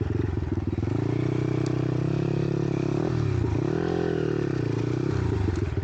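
Monkey bike's small single-cylinder engine pulling under way. The revs hold steady, drop sharply about halfway through, climb back, then ease off a little near the end.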